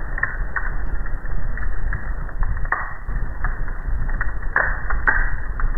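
Wood fire crackling, with irregular sharp pops over a low rumble, a few of them louder near the end; the sound is muffled, with no treble.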